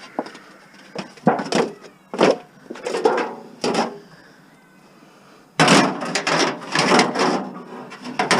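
Loose scrap metal being handled and tossed onto a load: several separate clanks and knocks, then a dense run of rattling clatter from a little past halfway.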